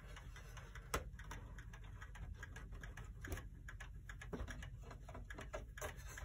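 A c1910 pendulum clock's movement ticking as it runs, a train of light clicks from its escapement, with one louder click about a second in.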